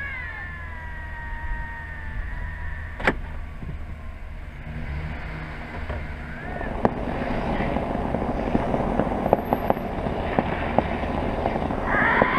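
Canada lynx yowling over the low hum of an idling vehicle engine. The first call is a long, wavering cry that falls in pitch and holds for about two seconds; a short call comes about halfway through, and a loud, arching yowl near the end. Between them there is a rushing noise with scattered clicks.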